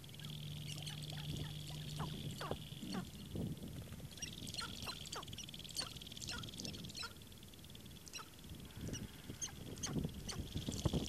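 Sharp-tailed grouse calling: many short clucks and cackles from several birds, overlapping throughout. A high steady buzzing comes and goes behind them, and a low hum sounds for the first few seconds.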